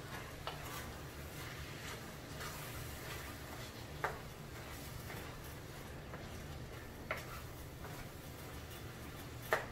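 Wooden spoon stirring a thick vegetable and rice mixture in a skillet, with a few short knocks of the spoon against the pan over a faint steady background.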